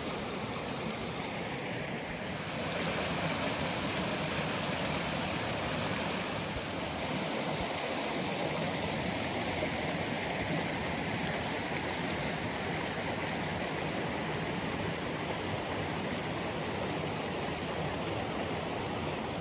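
Mountain river water rushing steadily, growing a little louder about two and a half seconds in.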